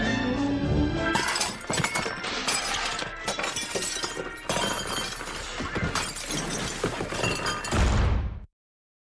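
Music, giving way about a second in to a dense run of crashing and shattering, like things breaking. A loud low hit comes just before everything cuts off abruptly near the end.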